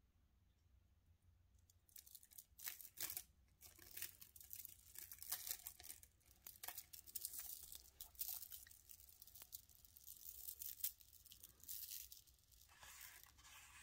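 Packaging rustling and crinkling in the hands in quick, irregular bursts, starting about two seconds in.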